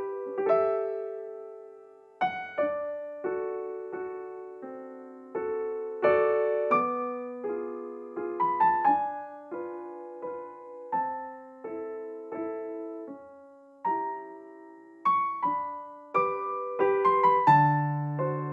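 Background piano music: a gentle melody of struck notes and chords, each note fading after it is played.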